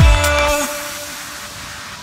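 Background music with deep bass thumps that stops about half a second in, leaving a fading tail and a quieter stretch.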